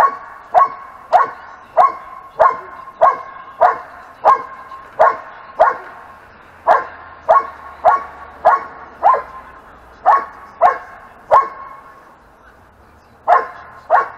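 A dog barking over and over, about one and a half barks a second. It pauses briefly twice, then stops for about two seconds before two more barks near the end.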